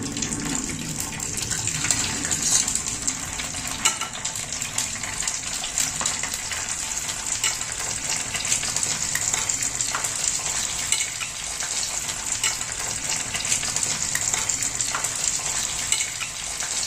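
Meatball-filled wonton cups frying in shallow hot oil in a nonstick pan: a steady crackling sizzle, with a few sharper clicks from the metal tongs turning them.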